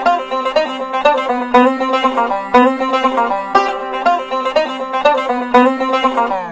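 Background music: a plucked-string tune over a held low note, with a beat about twice a second.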